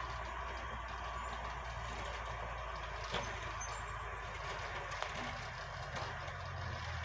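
Engine of a Bucyrus dragline running steadily under work, with a couple of light knocks from the machine about three and five seconds in.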